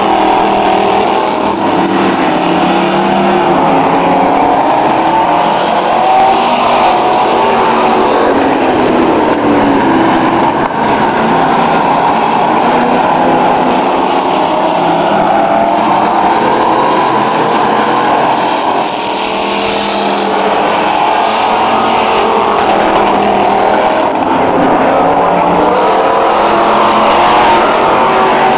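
Several demolition race trucks racing around an oval track, their engines revving up and down continuously as they lap.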